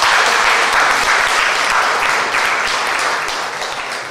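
Audience applauding: many hands clapping together, steady throughout and easing slightly near the end.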